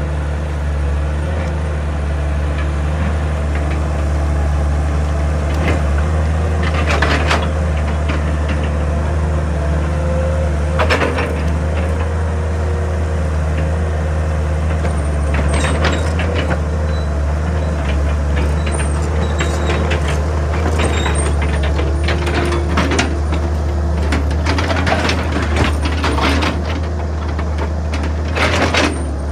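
Excavator's diesel engine running steadily under load, with scattered knocks, scrapes and hissing bursts of the bucket and hydraulics working rock.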